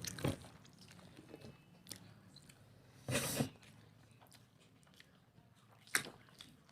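Close-up mouth sounds of a person chewing mouthfuls of spicy mutton curry and rice, with a few small wet clicks. A short breathy rush about three seconds in and a sharp click near the end.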